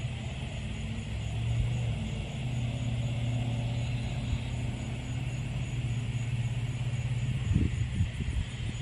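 An engine running steadily with a low, even hum, with a few low thumps near the end.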